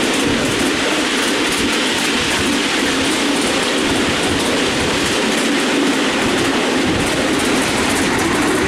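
Miniature railway train, hauled by a miniature BR Class 37 locomotive, running steadily along the track, heard from a passenger seat on the train: a continuous rumble of wheels on rail with faint irregular clicks.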